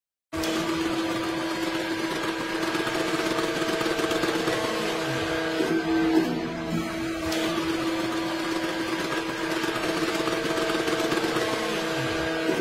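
Hydraulic swaging press running, a steady machine hum with a constant tone, while its dies press a ferrule onto a steel wire rope. The sound cuts out for a moment right at the start.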